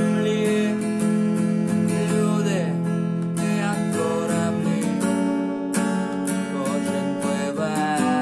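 Acoustic guitar strummed in steady chords, with a man's voice singing over it at times.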